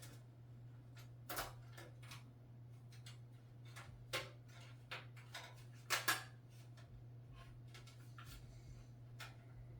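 Thin metal motherboard I/O shield being pressed into the rear cutout of a PC case: a scatter of light metallic clicks and taps, the loudest about a second and a half, four and six seconds in. A steady low hum runs underneath.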